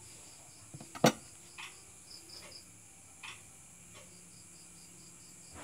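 Night crickets chirping in a steady pulsing trill over a high insect drone, with one sharp loud click about a second in and a few fainter handling sounds after it.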